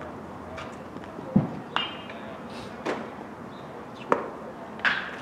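About five sharp knocks and pops of baseballs being hit and caught, the loudest about a second and a half in, over a steady outdoor hiss.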